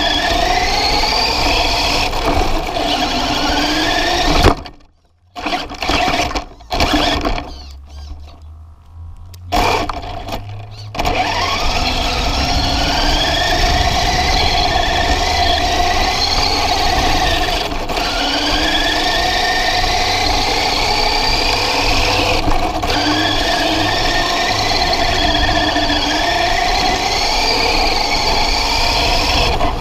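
Remote-control car's motor whining from a camera mounted on the car, its pitch rising again and again as the car accelerates. About four seconds in comes a sharp knock, then the motor mostly stops for several seconds before it picks up and runs on.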